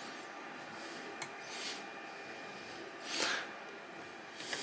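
Hex key turning the build-plate screws of a MINGDA Goldfish X resin printer to lock the plate down after leveling it against paper: faint metal rubbing, with two short scraping sounds about one and a half and three seconds in.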